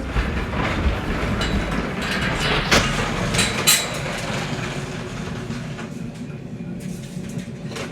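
Rattling and handling noise with a few sharp knocks, as a stage light is hung on a metal lighting stand.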